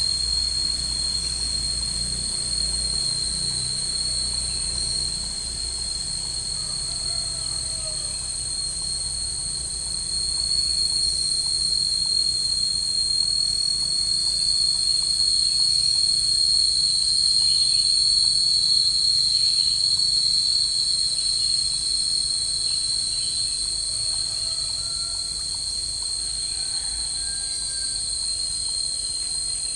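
Steady, shrill chorus of insects, with two high pitches held without a break, growing louder for a while in the middle.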